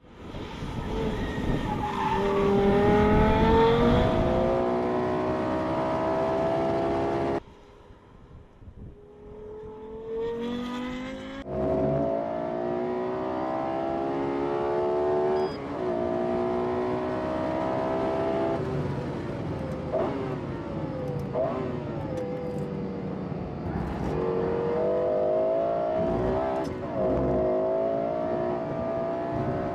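Lexus LFA's 4.8-litre V10 engine accelerating hard, its pitch climbing through each gear and dropping back at the upshifts. About seven seconds in, the sound suddenly falls to a quieter stretch for about four seconds, then the engine is back, pulling through the gears again.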